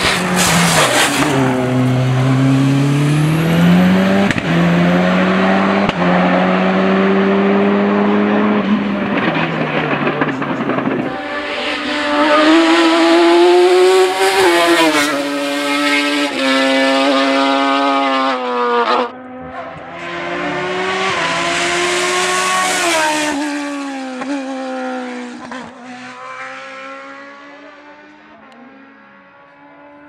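Race car engines at full throttle: one engine revs and shifts up through the gears for about ten seconds, then a higher-pitched engine climbs through several gear changes and fades into the distance near the end.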